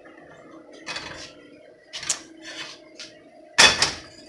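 A few short knocks and rustles, the loudest about three and a half seconds in, over a faint steady hum.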